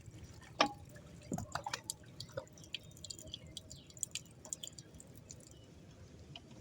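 Scattered drips and small splashes of water with light clicks, water being added by hand to the spot on the concrete slab for wet core drilling; the drill is not running.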